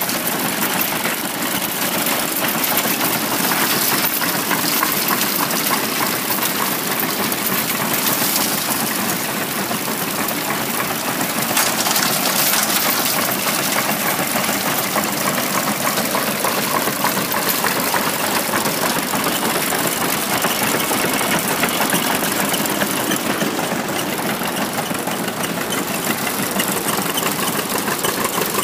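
IHC 28-inch wooden threshing machine running steadily off its flat drive belt, its belts, pulleys and works clattering and rattling together with the engine that drives the belt. It is the machine's first run in 59 years.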